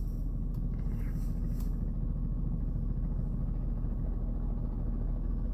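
Helicopter hovering low, its rotor and engine giving a steady low drone, heard from inside a car.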